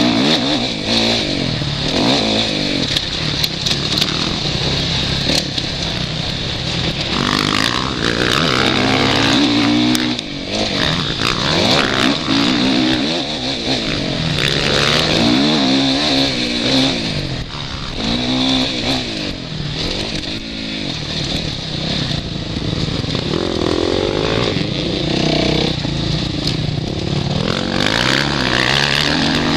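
Suzuki RM-Z450's single-cylinder four-stroke motocross engine under hard riding, revving up and dropping back again and again as it accelerates and changes gear, heard from the rider's helmet camera.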